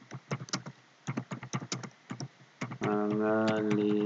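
Typing on a computer keyboard, a quick run of key clicks. About three seconds in, a voice begins a drawn-out sound held at a steady pitch.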